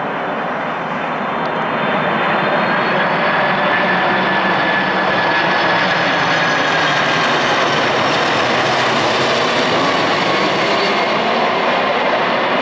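Turbofan engines of a Boeing 747-400 freighter on approach with its gear down, passing low overhead: a loud steady jet noise with a high fan whine that comes in about two seconds in and slowly drifts in pitch.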